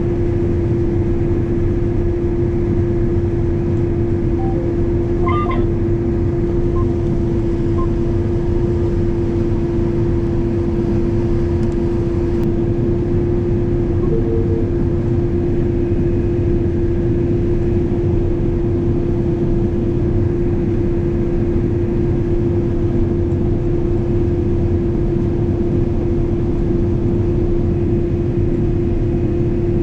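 Combine harvester running steadily while cutting corn, heard from inside the cab: a low rumble with a strong, unchanging hum.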